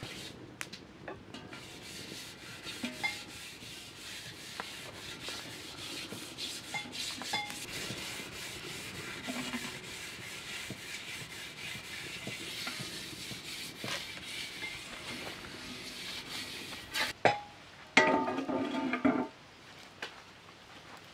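Hands rubbing and wiping the outside of a heavy stone cooking pot: a steady scratchy rubbing with many small knocks. Near the end comes a loud knock, then a second or so of heavy grinding scrape as the pot is set onto a metal barrel stove.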